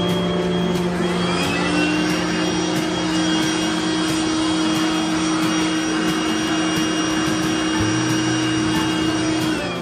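Handheld electric air blower switching on about a second in with a rising whine, running steadily as it blows loose sand and dust off a casting mould, then winding down near the end.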